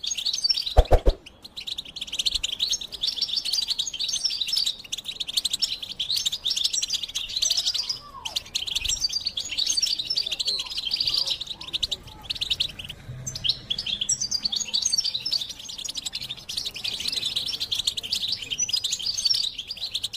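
European goldfinch singing: a fast, continuous twittering song of high chirps and trills, with brief pauses about eight and twelve seconds in. A short low thump sounds about a second in.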